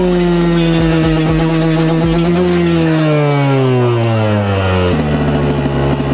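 Enduro dirt bike engine running at steady revs, then the revs slide down from about two seconds in and settle to a lower steady note about five seconds in.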